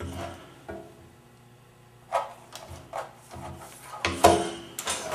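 A taped stack of wood knocking and rubbing on a scroll saw's metal table as it is positioned and the blade is threaded through the entry hole and clamped: a handful of light knocks and scrapes, the loudest about four seconds in. The saw is not yet running.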